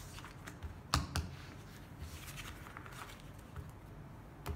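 Playing cards being handled and gathered from a felt table into a stack, with a few light clicks and taps: the sharpest about a second in, a smaller one just after it, and another near the end.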